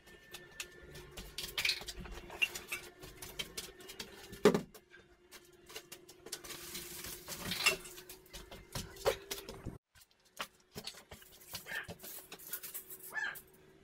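Scattered clicks, knocks and a few louder thuds of hand work on drywall, with a stretch of scraping in the middle, over a faint steady hum.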